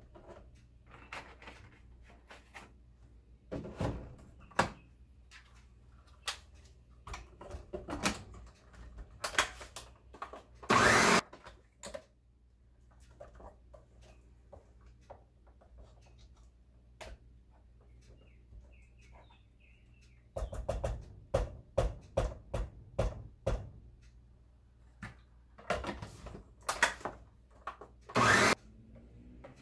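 Countertop blender run in short bursts on a thick frozen-fruit smoothie, between clicks and knocks of the jar and lid being handled. There is a longer burst about eleven seconds in, a rapid run of short pulses a little after twenty seconds, and one more burst near the end.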